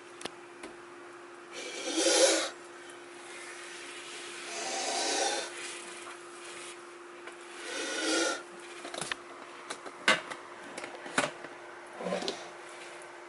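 A provoked cobra hissing in four short, breathy bursts, the first the loudest; a few sharp knocks and clicks fall between the later hisses, over a faint steady hum.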